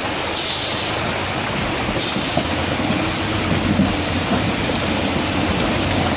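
Loud rushing stream water, with a loaded logging truck's engine running steadily beneath it.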